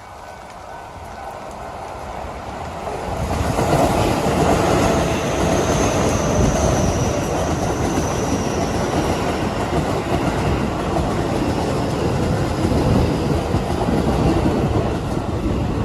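Keio Line electric train passing close by, its wheels clacking over the rail joints. It grows louder over the first three seconds or so, then stays loud, with heavy rain behind it.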